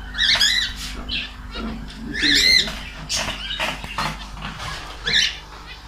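Myna bird giving several loud, high calls that bend in pitch, with short gaps between them.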